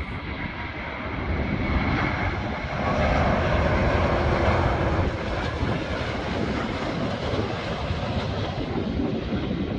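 Airbus A330neo's Rolls-Royce Trent 7000 jet engines on landing approach as the airliner flies past low. A steady jet rumble with a thin high whine that fades in the first couple of seconds, swelling loudest about two to five seconds in.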